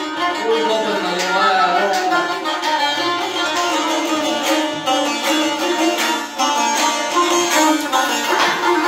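Azerbaijani saz played without singing, a quick run of plucked and strummed notes with frequent sharp strokes.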